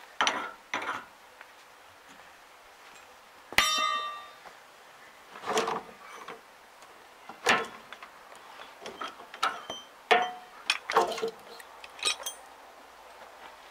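Scattered metallic clinks and knocks from hand tools and a bearing puller on a round baler's roller bearing housing, as the worn bearing is pulled off. A sharp clank about three and a half seconds in rings on briefly; the other knocks are irregular and short.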